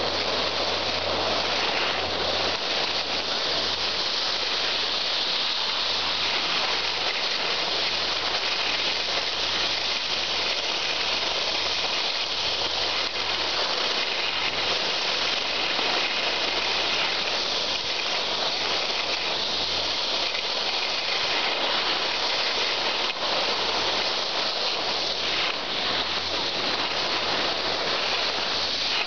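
Steady rushing hiss of skiing downhill: skis sliding over the snow, with wind rushing past the microphone.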